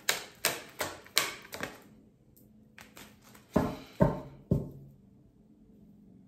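A deck of tarot cards being shuffled by hand, the cards slapping together in quick strokes, followed by three heavier knocks a little past the middle.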